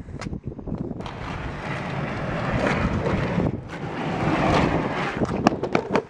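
Longboard wheels rolling down a tiled ramp: a rough, steady rumble that builds as the board comes nearer, with a few sharp clicks near the end.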